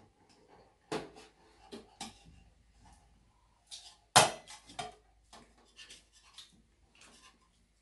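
Metal chopsticks clinking and scraping against stainless steel bowls and a tray as a pan-fried pancake is cut up and food is picked at: a string of irregular sharp clicks, the loudest about four seconds in.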